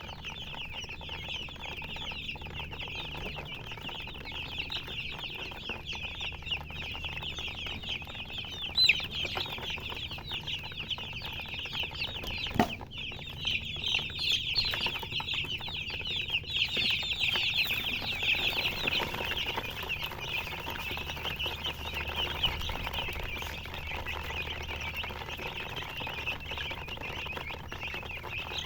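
A flock of chicks peeping without pause, many high, short chirps overlapping, busiest a little past halfway. A single sharp knock comes just before the busiest part.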